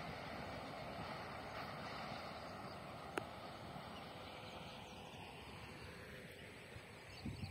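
Faint, steady rumble of a passing train dying away slowly, with a light click about three seconds in.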